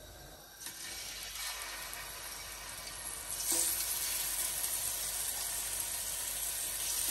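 Seasoned steak bites sizzling in hot olive oil in a ridged grill pan as they are laid in with tongs. The sizzle starts about half a second in and gets louder when a second piece goes in about halfway through.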